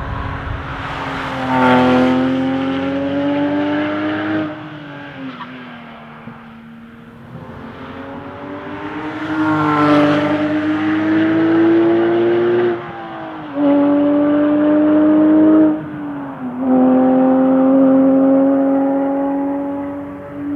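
Porsche 997 GT3 RS 4.0's naturally aspirated flat-six at high revs, passing by twice with the pitch falling as it goes past. Then it pulls hard, the note breaking off twice for a moment and coming back lower, as at upshifts.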